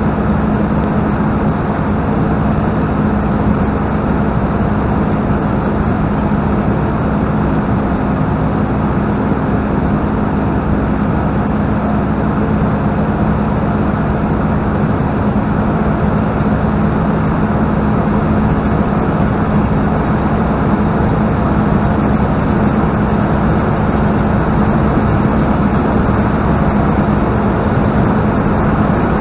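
A two-seat Spitfire's Rolls-Royce Merlin V12 engine running steadily in flight, a constant low drone mixed with the rush of air past the cockpit.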